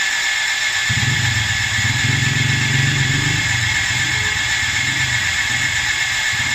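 Toyota 2C four-cylinder diesel engine cranking on its starter with a steady whine. About a second in it begins to fire with a low pulsing that is strong at first and then comes and goes, as the fuel system is being bled of air.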